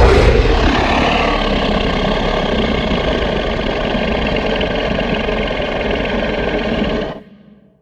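A SpaceGodzilla monster sound effect: a loud, steady rumbling noise that starts suddenly, holds for about seven seconds, then fades out quickly.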